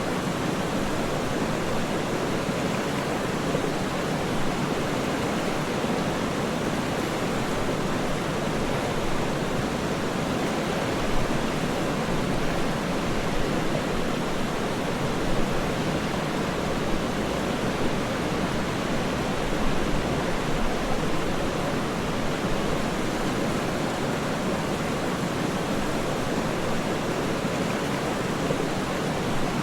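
Waterfall's rushing water, a steady, unbroken noise with no distinct splashes or changes.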